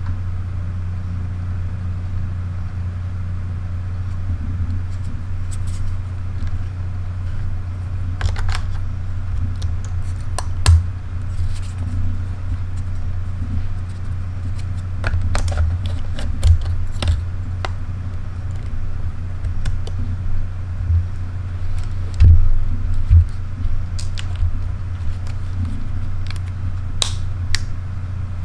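Scattered light clicks and taps of camera batteries, camera bodies and battery and port doors being handled, over a steady low hum.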